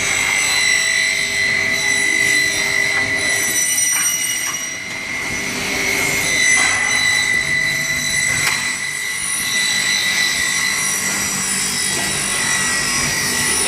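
Multi-head drilling machine for aluminium profiles running, its spindles giving a steady high whine with a few sharp clicks along the way.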